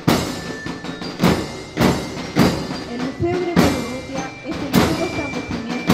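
Marching band drums beating a steady march rhythm, a little under two strong beats a second.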